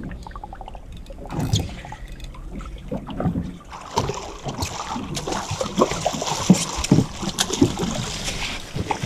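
Water splashing and sloshing around a fishing boat, with scattered knocks and clatter on deck. The splashing gets busier and louder about four seconds in.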